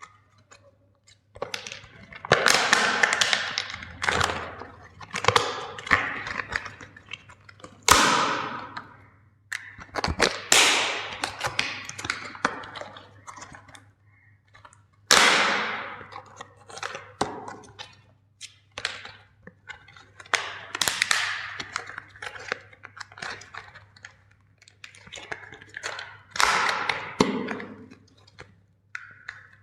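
Hammer blows smashing plastic toy vehicles: sharp strikes at irregular intervals, many followed by a second or two of cracking and crunching plastic.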